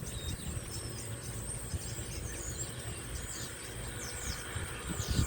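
Outdoor ambience: a steady high insect drone with scattered short bird chirps over a low rumble.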